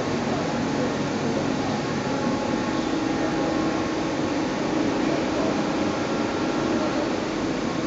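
Steady hum and whir of running workshop machinery, with a few faint steady tones over it.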